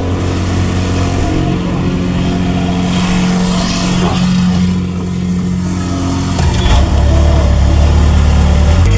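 A machine engine running steadily, its tone shifting about two-thirds of the way through.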